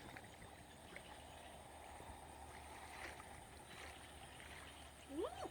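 Faint water sloshing and trickling with a few light ticks. Near the end comes a short call that rises and falls in pitch.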